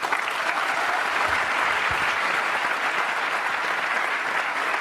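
An audience applauding, steady dense clapping that begins abruptly as a speaker finishes.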